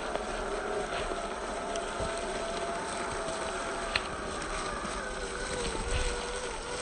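Electric motor and gears of a Traxxas TRX-4 Land Rover Defender RC truck whining at low, steady speed, the pitch wavering slightly, over a faint hiss with a few light clicks.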